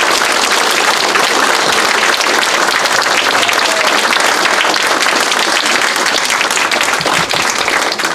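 Congregation applauding steadily, a loud dense patter of many hands clapping.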